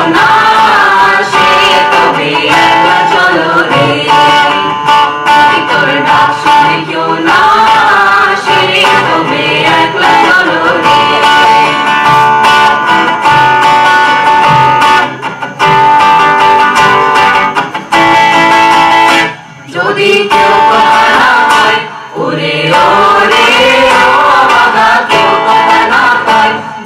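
A mixed group of voices singing a song together, accompanied by an acoustic guitar, with two brief breaks about two-thirds of the way through.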